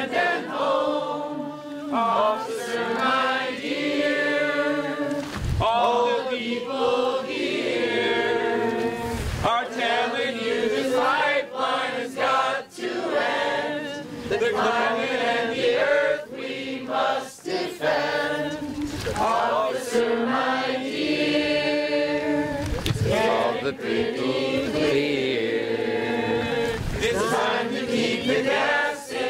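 A group of men and women singing a protest song together without instruments.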